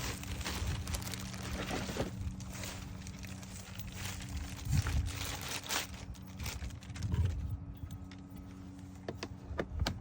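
Scattered clicks, taps and rustling as plastic accessory parts and screws are handled and fitted on a car door panel, over a steady low hum.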